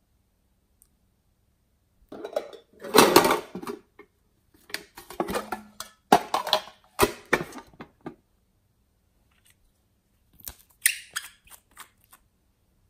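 Hard plastic and glass handling noises: clicks, knocks and scrapes in three bursts, the loudest about three seconds in. They come from a plastic case and nail polish bottles being picked up, handled and set down.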